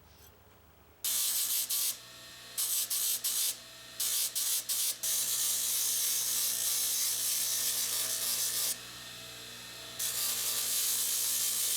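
Steel rebar being ground on a power abrasive tool: a harsh, high-pitched grinding hiss that starts suddenly about a second in, comes in several short bursts, then runs in two long stretches with a quieter gap between them.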